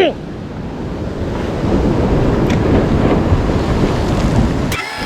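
Ocean surf washing against a rock ledge, with wind buffeting the microphone; the sound cuts off suddenly near the end.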